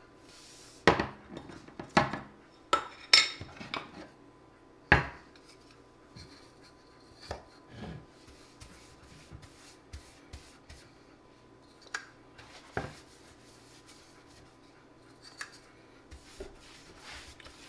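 A small metal can of polyurethane varnish being opened: several sharp metal clinks and knocks in the first five seconds, the loudest about five seconds in. Softer scattered taps and rubbing follow as a paintbrush is dipped and worked against the can.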